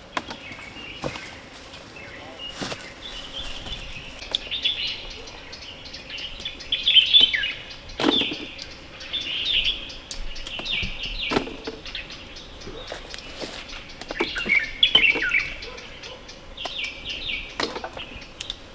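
Small birds chirping in short repeated phrases, with scattered sharp clicks and knocks.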